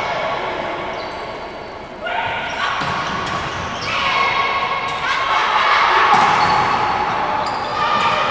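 Volleyball rally in a large sports hall: the ball struck several times in sharp hits over a steady layer of shouting voices, which grows louder in the second half.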